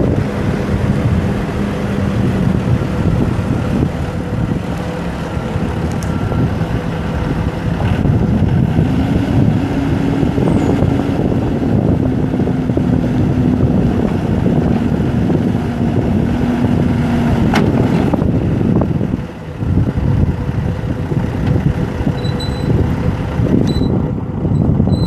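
Komatsu WB140-2N backhoe's Yanmar four-cylinder turbo diesel running. The engine speed rises about eight seconds in, holds, and drops back shortly before a brief lull.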